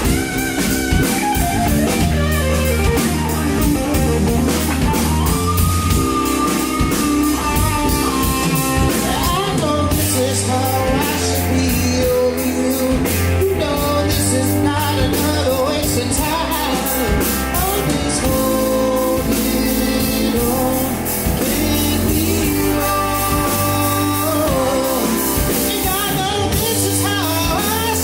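A rock band playing: electric guitar, bass guitar and drum kit, with a lead singer's voice.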